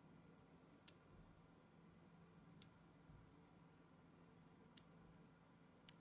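Small magnet balls snapping together: four sharp, high clicks, spaced a second or two apart, as clusters of balls are pressed onto a strip.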